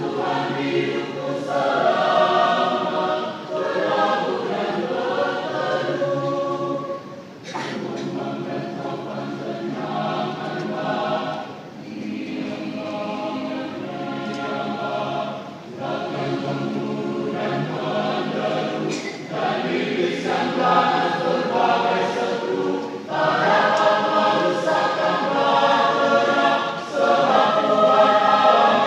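Church choir singing a hymn in several voice parts, long held chords in phrases with short breaths between them.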